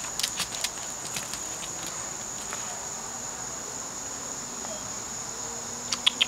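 Steady high-pitched insect chirring, like crickets, with a few short ticks in the first second and again near the end, fitting a dog's claws on concrete.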